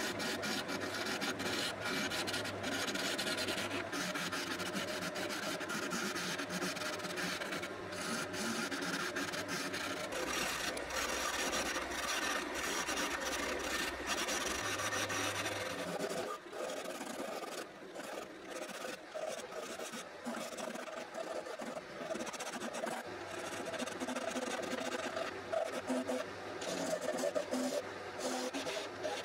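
Spindle gouge cutting a small spindle of dark wood on a wood lathe: a continuous scratchy, rasping cut of the tool edge on the spinning wood. A steady low hum from the lathe sits underneath, fading for a while past the middle and returning later.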